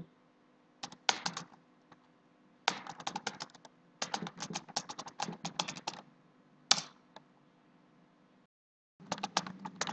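Typing on a computer keyboard: quick runs of keystrokes with short pauses between them. About two-thirds through comes a single louder stroke, the Enter key sending the command, and a fresh run of typing starts near the end.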